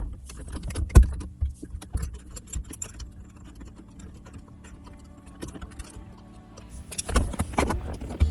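Small metal screws and tools clicking and rattling while trim screws are taken out of a car's centre console, with a sharp knock about a second in and a burst of clicks near the end.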